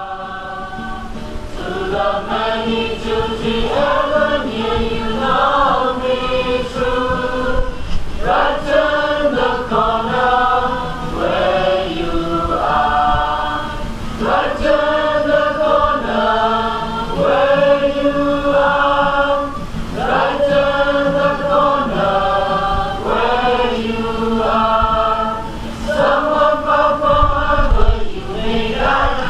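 A group of voices singing a song together, phrase after phrase, over a steady low held tone.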